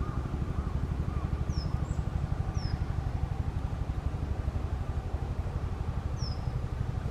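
Three short, high, downward-sliding chirps from a small songbird, about one and a half seconds in, again about a second later, and once more near the end. Under them runs a steady low rumble that is louder than the chirps.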